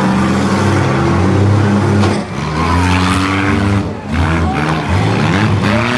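Engines of 4- and 6-cylinder compact demolition derby cars running loudly and revving, their pitch rising and falling several times, dipping briefly twice.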